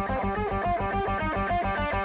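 Background music with a fast, repeating note pattern over a steady pulsing beat.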